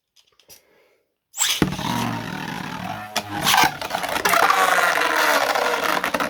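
Two 3D-printed plastic Beyblades launched about a second and a half in, then spinning and scraping around the stadium with a few sharp knocks.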